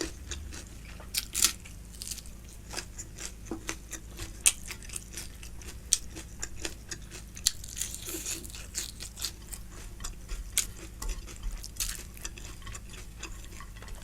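Close-miked chewing of food, with irregular wet mouth clicks and smacks.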